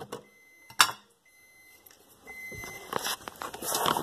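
Handheld camera falling over: one sharp knock about a second in, a near-silent gap, then rustling and scraping handling noise as it is picked back up.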